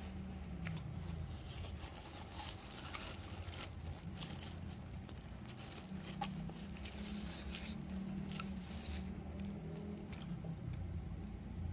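Close-up eating and drinking sounds: chewing, then sips from a paper cup, heard as scattered short clicks, smacks and crinkles over a steady low hum.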